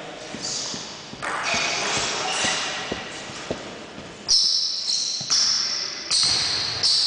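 Table tennis rally: the celluloid ball clicks sharply off bats and table, about one hit every half second to second from about four seconds in, each click ringing in the hall. Before that, a few faint light knocks and shuffling as the server gets ready.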